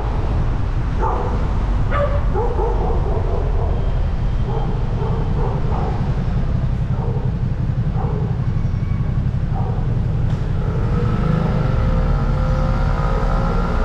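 Steady low rumble of a car driving on city streets, with a run of short, separate calls over the first ten seconds. About ten seconds in, a rising, then steady, engine note starts.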